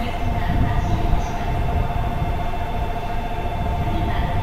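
200 Series Shinkansen train running slowly into a station platform: a low rumble under a steady, pulsing pair of tones.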